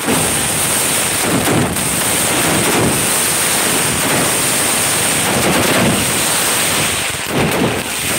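Many fireworks going off at close range: a continuous dense crackling of firecrackers and spark fountains, with a steady high hiss and a few heavier low swells.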